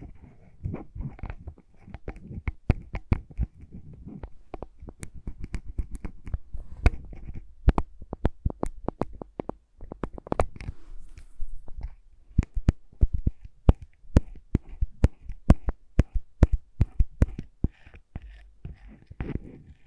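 Close-miked ASMR lip balm sounds: a quick, irregular run of small clicks and taps with soft rubbing and handling noise between them.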